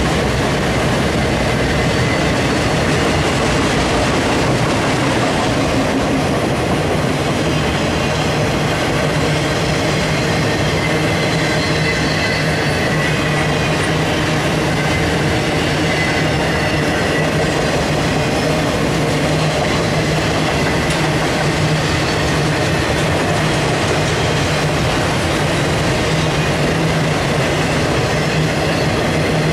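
Freight train of enclosed autorack cars rolling past at steady speed: a loud, even rumble of steel wheels on the rails.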